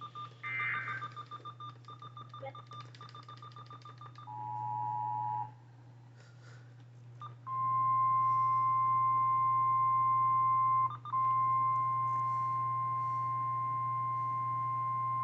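Weather-radio alert tones. A rapid pulsing beep comes first. About four seconds in, a short two-note chord sounds, fitting the EAS two-tone attention signal. After a brief gap, the steady single-pitch NOAA Weather Radio warning alarm tone (1050 Hz) sounds for about nine seconds, with a short dropout near the middle.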